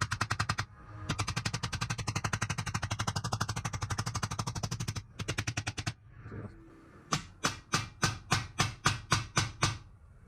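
Rapid, very even run of metal strikes, about a dozen a second, with two short breaks, then about ten separate, slower blows, roughly four a second, each ringing briefly: a rivet being hammered home and its head set on a steel breastplate.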